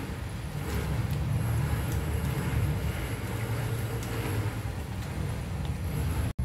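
Soba noodles in a pan of water at a rolling boil, giving a steady low rumble of bubbling, with a few faint clicks of the tongs stirring them.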